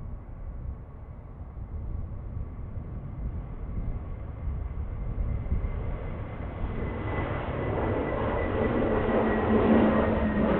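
Airbus A321neo jet engines at takeoff, a low rumble with a thin steady whine that grows steadily louder over the last few seconds.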